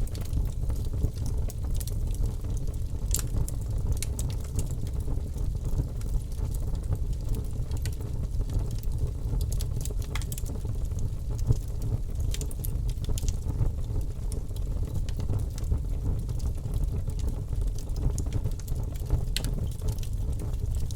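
Bonfire burning: a steady low rumble of flames with scattered sharp crackles and pops from the burning wood at irregular moments.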